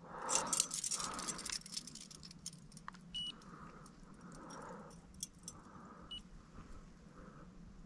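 Small metal chain and clip of a handheld digital fish scale jingling and clinking as it is handled, busiest in the first second and a half, then in scattered clicks. Two short high beeps a few seconds apart as the scale is zeroed to take off the chain's weight.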